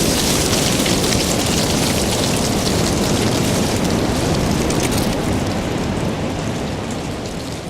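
Heavy rain falling steadily, a dense hiss with a low rumble underneath, fading out over the last couple of seconds.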